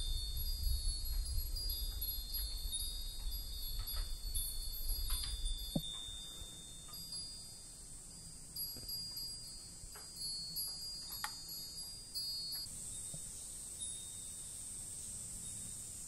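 Japanese temple wind chime (furin) ringing, its clear high tones sounding on and off with a few sharper strikes of the clapper, under a low rumble for the first six seconds.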